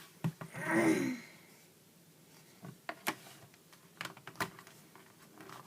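A brief wordless vocal sound about a second in, then several sharp clicks and light taps from small objects being handled, spread over the next few seconds.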